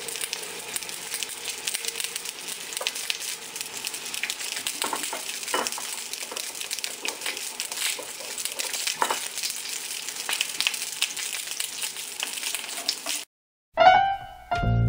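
Quartered onions frying in vegetable oil in an enamelled cast-iron Dutch oven: a steady sizzle with scattered small pops. Near the end the sizzle cuts off suddenly and plucked-string music begins.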